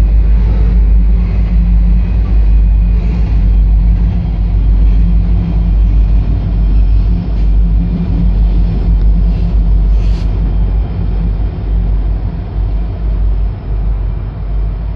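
Norfolk Southern SD40E diesel locomotives running past, with a steady low engine drone over a heavy rumble. The sound eases slightly towards the end as they draw away.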